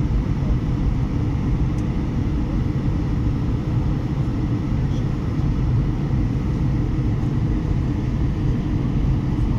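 Steady cabin noise of an Airbus A320 airliner on approach: a low, even roar of the jet engines and airflow heard from a window seat beside the engine, with a faint steady whine above it.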